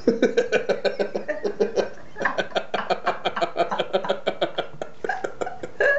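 People laughing: a long run of quick laughs, with a short break about two seconds in.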